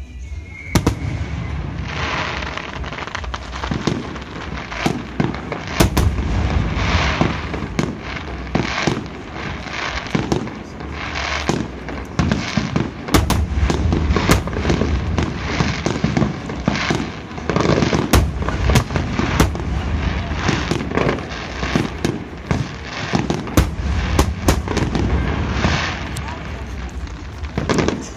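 Aerial fireworks display: shells bursting in a dense, unbroken series of bangs and crackles, with deep booms underneath.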